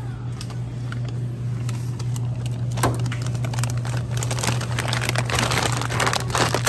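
Plastic bags of frozen chicken crinkling as they are handled and pulled from a freezer case, growing dense and busy from about three seconds in. A steady low hum runs underneath.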